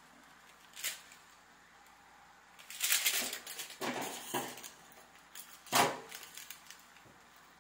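Small plastic seasoning sachets crinkling and being torn open by hand, in several short rustling bursts with the sharpest near the end.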